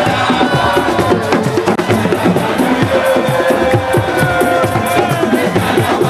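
Fast, rhythmic drumming with a sustained melodic voice or instrument line over it: loud, lively drum music.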